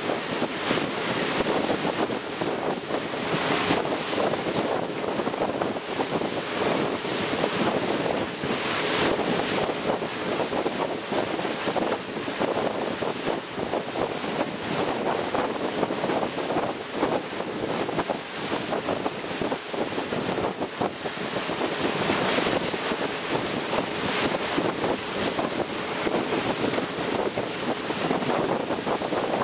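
A motorboat under way at speed: wind buffeting the microphone and water rushing and splashing past the hull over the steady drone of the motor. Louder gusts of wind hit the microphone several times.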